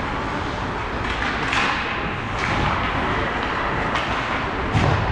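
Ice hockey game noise in a rink: a steady wash of skates scraping the ice and crowd murmur, with a sharp thud near the end, like the puck or a player hitting the boards.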